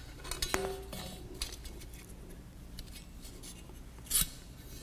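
Light clinks and clacks of the rails and uprights of an Aprilaire upgrade-kit snap-together filter frame knocking together as they are handled, with a louder clatter about four seconds in.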